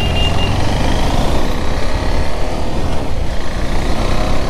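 Motorcycle engine running as the bike picks up speed in traffic, under a steady rush of wind noise on the microphone. The engine's pitch rises faintly near the end.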